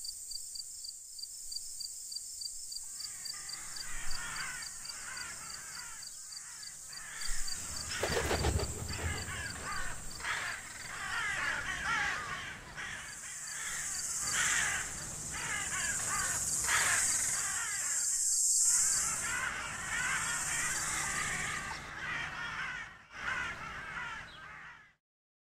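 A flock of crows cawing, many calls overlapping, over a steady high insect-like trill. A low thump comes about eight seconds in, and the sound cuts off just before the end.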